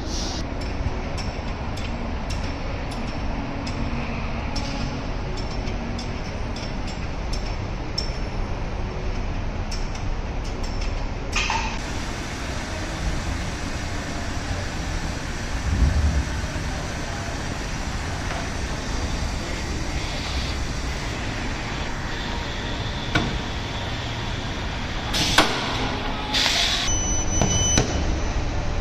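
Body shop background noise: a steady low rumble with scattered small clicks and metal knocks from handling and clamping the body panels, a louder thump about halfway, and a few short sharp bursts near the end.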